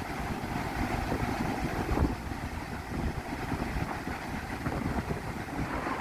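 Wind buffeting the microphone in irregular gusts over the steady rush of rough surf.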